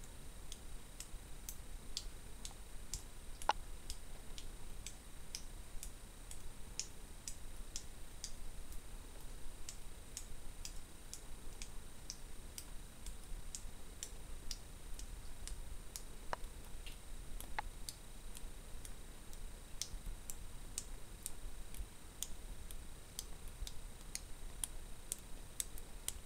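Faint, irregular high clicks and ticks, a few each second, over a steady faint high-pitched hiss.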